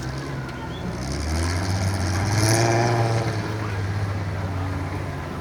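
Off-road trial vehicle's engine running at low revs, its pitch dropping about a second in, with a short louder burst near the middle.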